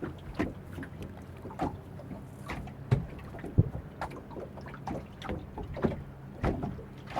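Water slapping and knocking against the hull of a small fishing boat in irregular short knocks, over a steady low hum.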